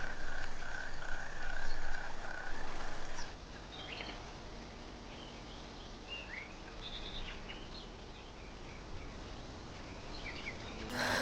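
Outdoor nature ambience: a pulsing, chirring animal trill for about the first three seconds, then scattered short bird chirps over a quiet background.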